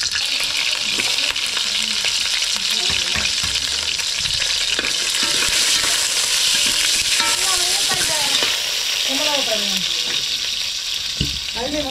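Whole garlic cloves and onion frying in a hot pan, sizzling steadily.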